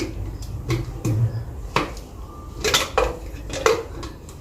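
Kitchen dishes and utensils clinking and knocking: about seven sharp, irregular knocks.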